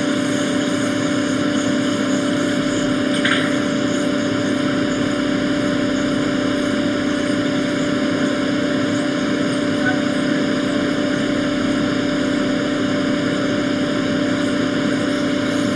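Hot air rework station blowing steadily on a replacement HDMI encoder chip to reflow the solder beneath it, a constant whooshing hum that holds one pitch.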